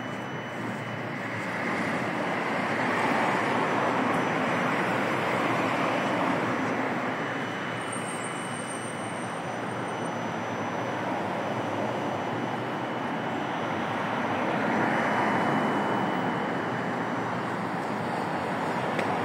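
Steady road-traffic noise that grows louder twice for a few seconds, with a brief faint high whine in the middle.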